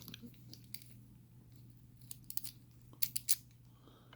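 A padlock being handled: scattered light clicks and taps, with two quick runs of three sharper clicks about two and three seconds in, over a faint steady low hum.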